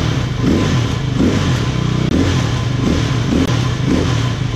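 Husqvarna SMR 510's freshly rebuilt 501 cc single-cylinder engine running, with the throttle blipped repeatedly in short revs.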